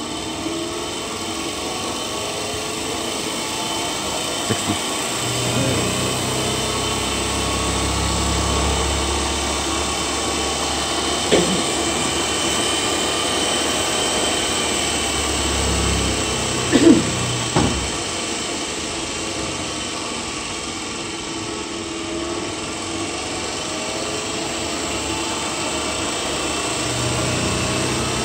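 DC motor with its attached load running steadily on a buck converter's output, picking up speed as the supply voltage is raised from about 60 to 70 volts. A few sharp clicks sound about halfway through.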